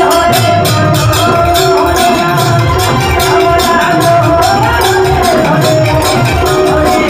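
Devotional bhajan kirtan music: a harmonium holding steady chords over a regular jingling hand-percussion beat.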